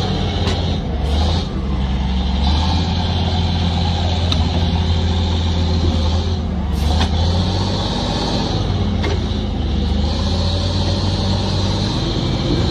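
A heavy diesel engine running steadily under load, with a constant deep hum and a hiss over it.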